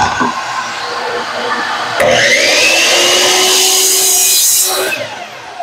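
Compound miter saw switched on about two seconds in, its motor whine rising as it spins up, then cutting through an SPC vinyl flooring plank for about three seconds before the sound drops away.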